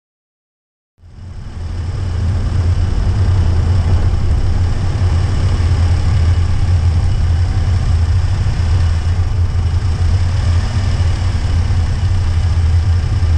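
Honda N-VAN's small three-cylinder kei engine and road noise as the van drives, picked up by a camera mounted on the front of the van. It starts abruptly about a second in and then runs steady with a strong low hum.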